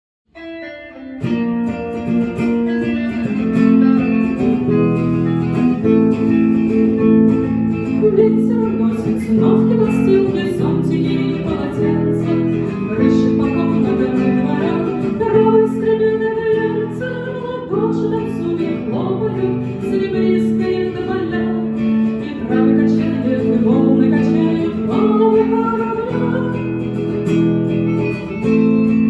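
Live music: a guitar-led instrumental introduction that starts about a second in and plays on steadily.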